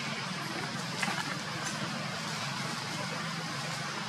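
Steady rushing background noise, with one brief rustle about a second in.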